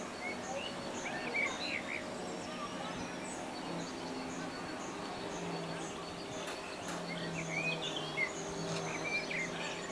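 Outdoor ambience with several birds chirping, a short high call repeating about twice a second, and a faint steady low hum underneath.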